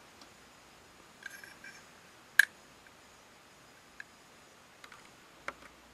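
AR-15 ejection port cover being worked by hand: a few light clicks, then one sharp snap about two and a half seconds in as the spring-loaded cover flips open, and a few faint ticks after.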